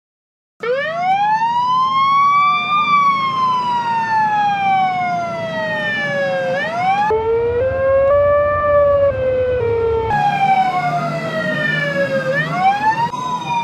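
Ambulance siren wailing in slow rising and falling sweeps, starting abruptly about half a second in, over a low vehicle rumble. The recording cuts abruptly about seven seconds in to a lower, steadier siren tone and back to the wail about three seconds later.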